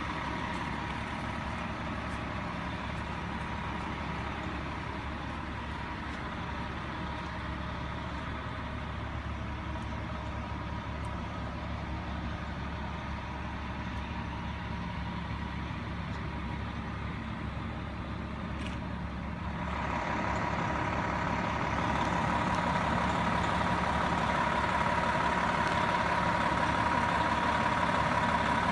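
Idling fire apparatus at the scene: a steady diesel engine idle with a steady whine. It grows louder about twenty seconds in as the aerial ladder truck comes close.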